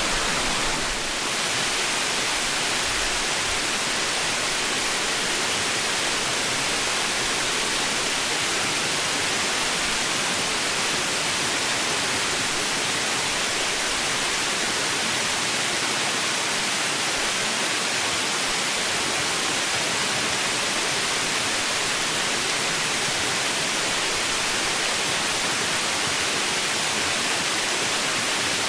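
Waterfall rushing, a steady even roar of falling, splashing water.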